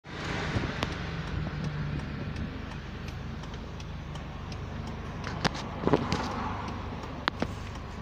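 Car engine running, heard as a steady low hum from inside the cabin, with a few sharp clicks about halfway through and near the end.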